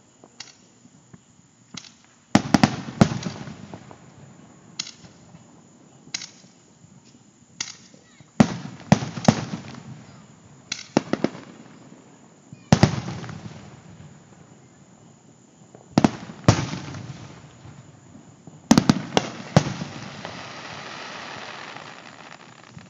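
Distant aerial fireworks shells bursting: about ten sharp booms in clusters of two or three every few seconds, each trailing off in a rumbling echo. Near the end comes a couple of seconds of hissing crackle.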